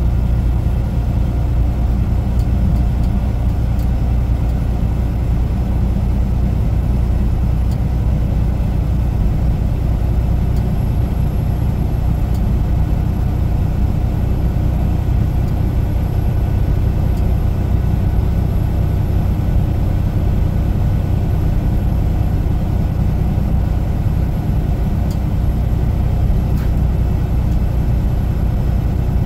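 Semi truck's diesel engine running steadily with road noise, a constant low hum.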